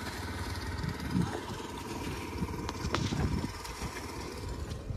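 Small engine of a pump set draining a fish pond, running steadily.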